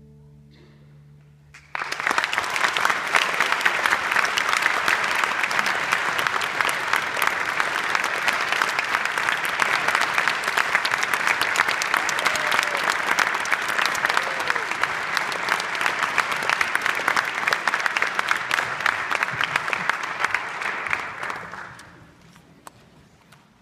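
Audience applause breaking out about two seconds in, after the orchestra's last notes have died away, then dying out near the end.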